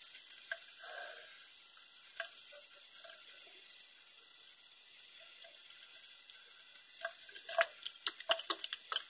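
Faint wet squelching clicks from a hand rubbing wet shower jelly soap into a lather. A few scattered clicks come first, then a quick run of them near the end.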